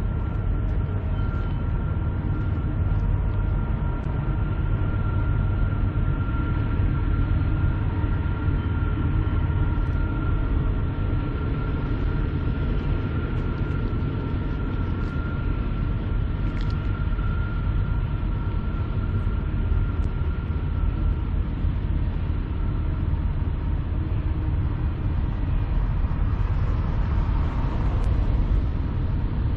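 Steady low rumble of a distant diesel freight train approaching, with a faint steady high tone that fades out about two-thirds of the way through and a hiss that rises near the end.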